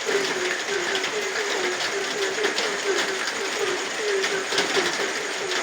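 Frogs calling in a fast series of short, low croaks, about four a second, over steady rain with scattered drips.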